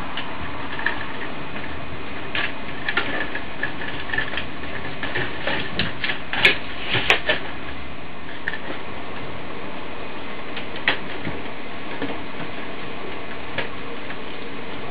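LEGO Technic plastic parts clicking and knocking as a truck body and chassis are handled and fitted together by hand. The clicks are scattered, come thickest in the first half, and the two loudest fall about halfway through. A steady background hiss runs underneath.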